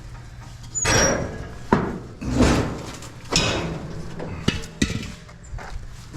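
Heavy metal scrap being shifted and manhandled: a run of scrapes and bumps with several sharp knocks, the strongest near the start and middle.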